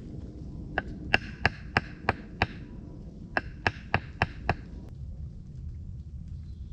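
Hammer blows on the wooden log steps, each a sharp knock with a short ring: six blows at about three a second, a pause of about a second, then five more.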